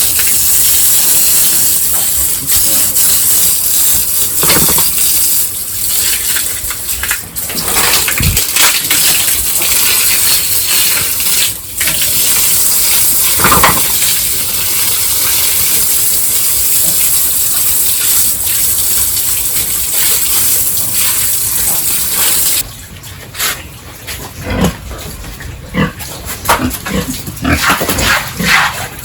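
Pigs grunting and squealing over the steady hiss of water spraying in a pig pen as it is hosed down; the spray stops a few seconds before the end, leaving the pigs' sounds.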